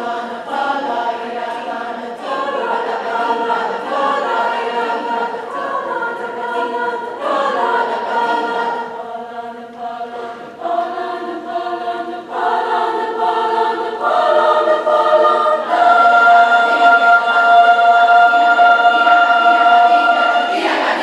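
Women's chorus singing sustained chords in several parts. It builds about three-quarters of the way through to a loud, long-held final chord, which is released at the very end.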